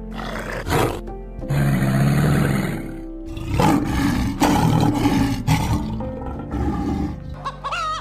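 A crocodile growling low for about a second and a half, then a lion roaring in a run of deep, heavy grunts, over background music. Chickens start clucking near the end.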